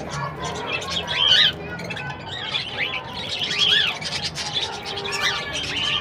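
A small aviary flock of budgerigars and cockatiels calling. Many short chirps rise and fall in pitch, overlapping in a continuous chatter.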